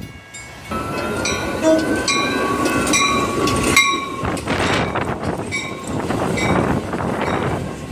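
Train passing close by. A sustained horn tone sounds for the first few seconds and cuts off about four seconds in, followed by the steady rumble and clatter of the cars going by.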